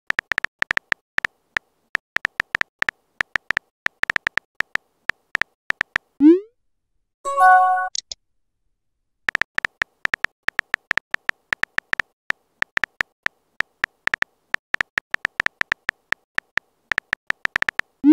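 Phone keyboard typing sounds: quick, irregular key-tap clicks, several a second. About six seconds in the tapping stops for a short rising whoosh of a message being sent, followed by a brief chime of a few notes. Then the tapping resumes and ends in another rising whoosh.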